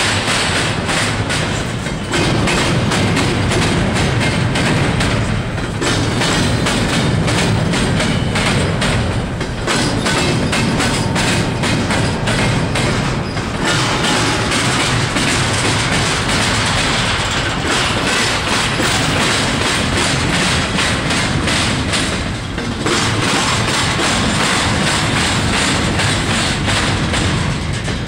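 Intermodal freight train's cars rolling past at close range: a steady rumble with the clickety-clack of wheels over rail joints, dipping briefly a few times.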